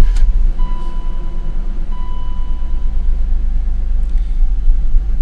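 BMW 528i (E39) straight-six engine running just after a hard start, a steady low rumble, not too rough but still a little doggy. The engine has a history of no-starts with a crankshaft position sensor (P0335) code. A steady high beep sounds on and off during the first few seconds.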